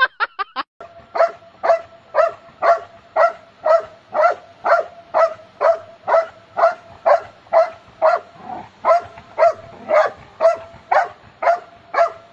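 A dog barking over and over in an even rhythm, about two barks a second.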